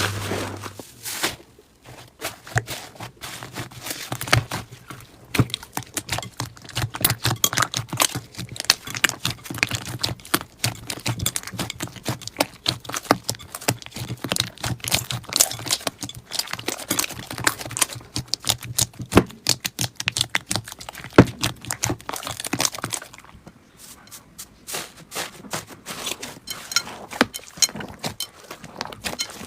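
Slime being squeezed and poked by hand, making a dense, irregular run of sticky clicks and small pops. It pauses briefly about two-thirds of the way through, then starts again.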